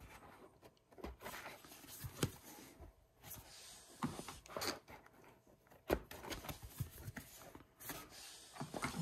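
Mounted cardboard game map boards being handled: rustling and sliding against each other and the box, with a few light taps and knocks.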